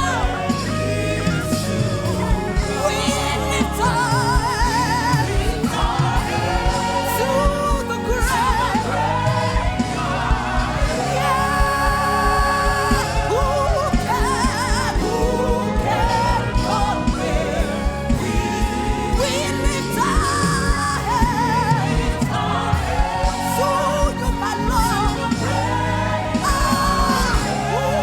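Gospel worship music: a singer with vibrato over a full band with prominent bass and drums.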